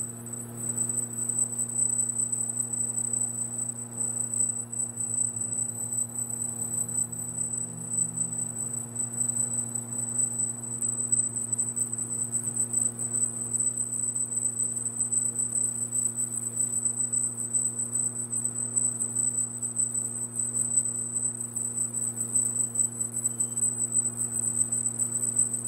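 Laser marking machine engraving a metal plate: a steady high-pitched whine with a crackling hiss above it, over a steady low electrical hum.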